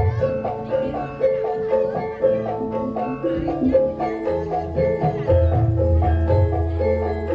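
Gamelan music played loud through a sound system: metallophones strike a fast, evenly repeating pattern of notes over low drum beats.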